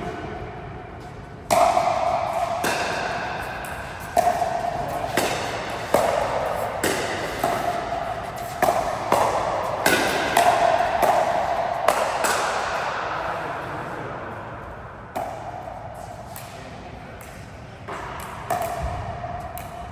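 A rally of sharp racket-and-ball hits, roughly one a second, each ringing on briefly, with a lull in the middle before a couple more hits near the end.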